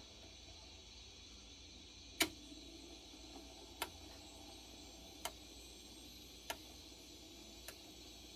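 Model railway turntable bridge rotating, giving five sharp clicks about 1.2 to 1.6 seconds apart, the first and loudest about two seconds in, over a faint steady hum. The clicks come as the bridge passes each track position.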